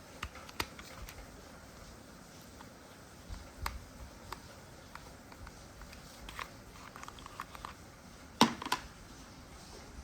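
Scattered light clicks and knocks, with a sharper double knock about eight and a half seconds in.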